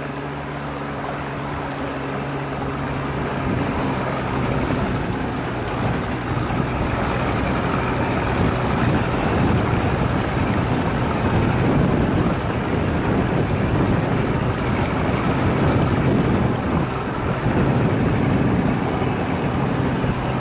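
Fishing boat's motor running, with wind buffeting the microphone and rushing water. The noise swells over the first few seconds and then holds loud and steady.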